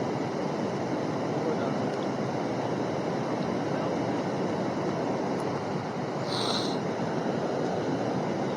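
Steady rush of flowing creek water, an even, unbroken noise.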